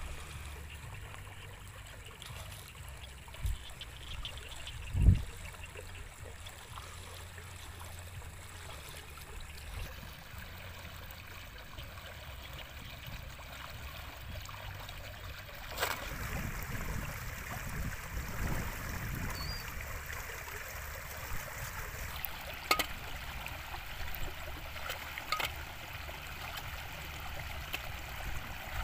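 Muddy floodwater flowing and sloshing around a person wading through a flooded rice field, with a dull low thump about five seconds in and a few sharp clicks later on.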